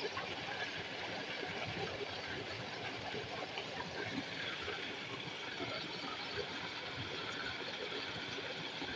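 Steady rush of water pouring into a concrete irrigation channel, with the faint slosh of a muddy mix being stirred by hand and stick in a plastic drum.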